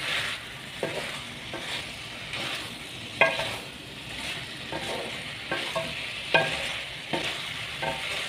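Minced meat and potato wedges sizzling as they fry in oil in a metal pan, stirred with a spoon that knocks and scrapes against the pan about once a second.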